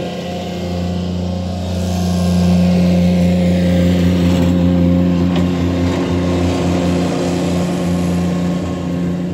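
Ditch Witch SK600 stand-on mini skid steer with its engine running steadily at working throttle as it moves about close by. The engine grows louder a couple of seconds in, then eases off slightly.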